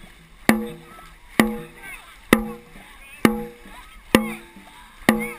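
Dragon boat drum struck in a steady beat, six hits about a second apart, each with a short booming ring, setting the paddlers' stroke rate. Voices call out between the beats.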